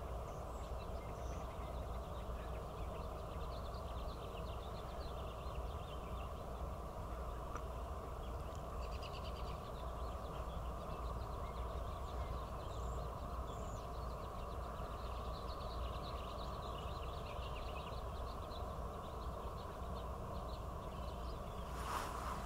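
Outdoor lakeside ambience: a steady low background rumble with bouts of faint bird chirping that come and go several times. There is a short click near the end.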